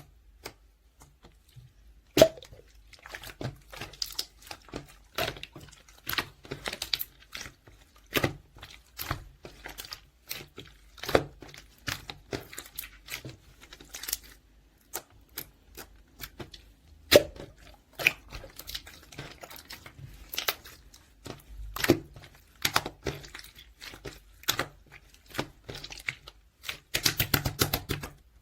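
Clear slime being squeezed, stretched and folded by hand, giving irregular sharp pops and clicks as trapped air bubbles burst, with a quick run of clicks near the end.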